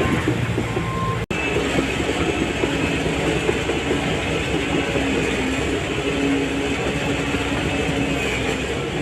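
Shantui DH17C3 crawler bulldozer working, its diesel engine running steadily under the dense clanking rattle of its steel tracks. There is a brief drop-out about a second in.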